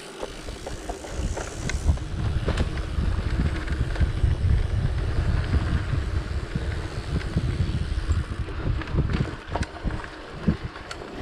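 Mountain bike riding fast along a dirt forest singletrack: a steady low rumble of tyres and wind on the microphone, with scattered clicks and rattles from the bike over the bumps.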